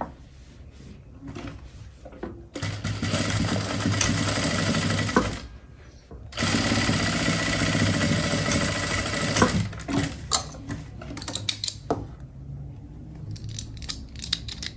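Sewing machine stitching in two runs of about three seconds each, with a short stop between them. Light clicks and rattles follow near the end.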